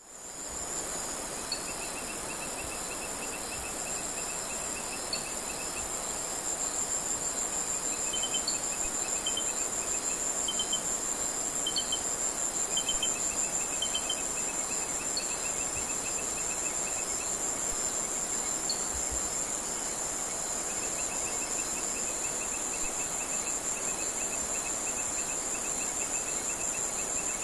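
Insects shrilling in a tropical forest: a steady high-pitched drone with a pulsing trill below it that comes and goes, and short chirps repeating every few seconds. The chorus fades in at the start.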